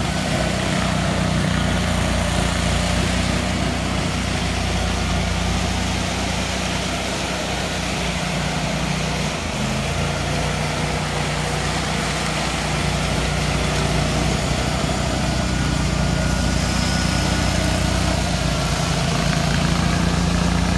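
Ride-on power trowel's small engine running steadily as the machine smooths a fresh concrete floor, its pitch shifting slightly about ten seconds in.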